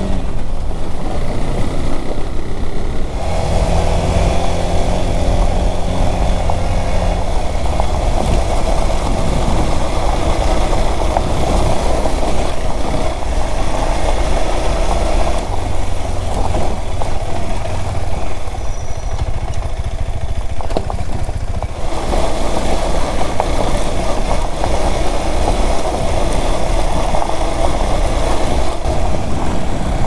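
KTM 390 Adventure's single-cylinder engine running steadily at low speed on a rough gravel track, with wind and road noise over the microphone. Its note changes about three seconds in and again around the middle.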